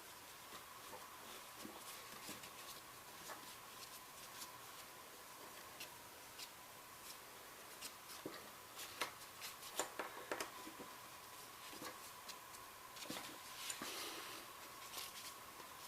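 Faint, scattered clicks and light taps of small metal parts of a Ramset 122MD powder-actuated tool being handled and fitted together during reassembly, with busier runs of clicks around ten and fourteen seconds in.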